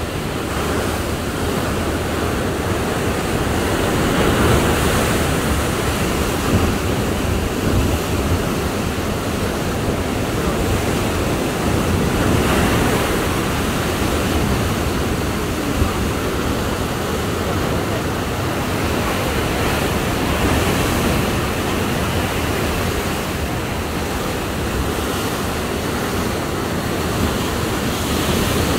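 Sea surf breaking and churning over rocks, a continuous rushing wash that rises and falls as the waves come in.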